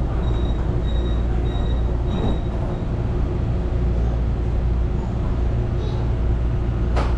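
Taichung MRT train's steady low hum, heard from inside the car as it is about to pull away from the station. A faint high beep repeats for the first few seconds, and there is a sharp click near the end.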